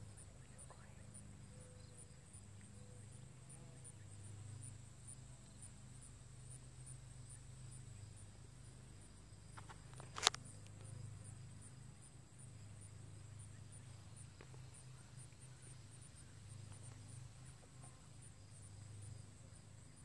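Faint pond-side ambience: an insect chirping steadily at a high pitch in a regular rhythm over a low steady rumble, with a single sharp click about ten seconds in.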